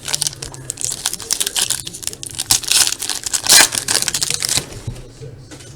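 Wrapping on a sealed box of Topps football trading cards being torn open and crinkled: a quick run of rustles and tears, loudest about three and a half seconds in, easing off near the end.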